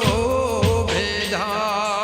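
Gujarati devotional song: a sung lyric line over a wavering melodic accompaniment and percussion strokes.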